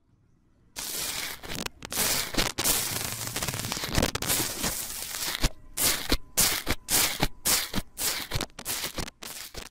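Airy, frothy pink slime crackling as it is pressed and poked with a small metal tool and fingertips, its trapped air bubbles popping. A dense, continuous crackle starts about a second in, then breaks into separate crackling presses about two a second.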